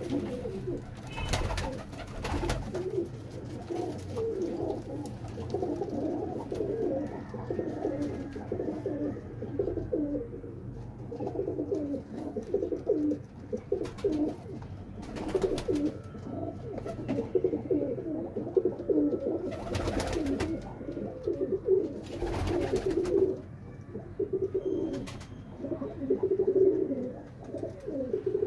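Several domestic high-flying pigeons cooing continuously in a small loft, their low warbling calls overlapping, with a few short sharp knocks in between.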